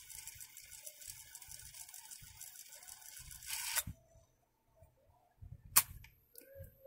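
The cassette transport of a National SS-9000 rewinding a tape at speed: a faint steady whirr with fine, fast ticking. It stops with a mechanical clunk a little past halfway. A sharp click follows near the end.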